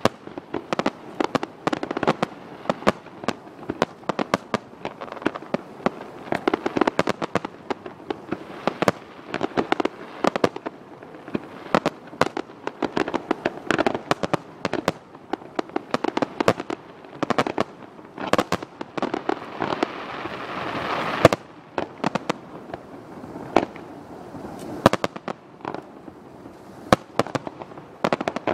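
Aerial fireworks display: a dense, irregular run of shell bursts and crackling reports. About two-thirds of the way in, a hiss swells for about three seconds and ends in the loudest bang.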